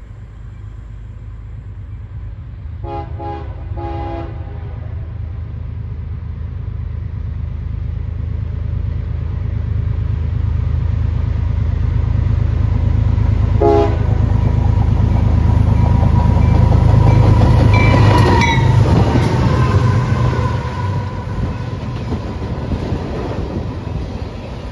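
CSX diesel freight locomotive approaching and passing, sounding its multi-tone horn: two short blasts about three seconds in and another short blast about 14 s in. The engine rumble grows steadily louder and peaks as the locomotive goes by, with another horn sounding around the loudest point. The freight cars then roll past with clickety-clack.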